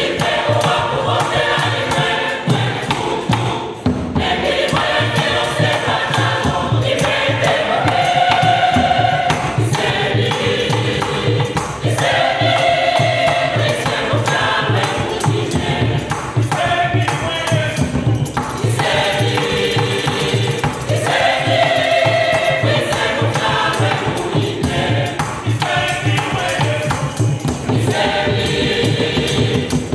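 A mixed church choir singing a gospel song in parts, over a steady beat from hand-played drums and shaken hand percussion.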